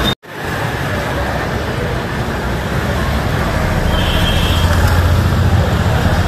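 Roadside traffic noise, a steady street hum with a low vehicle rumble that swells about four seconds in and holds for a couple of seconds.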